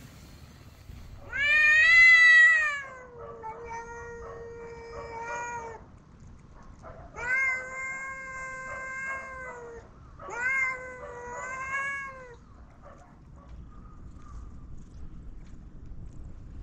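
Domestic cats yowling in a territorial standoff: four long, drawn-out calls. The first is the loudest and slides down in pitch.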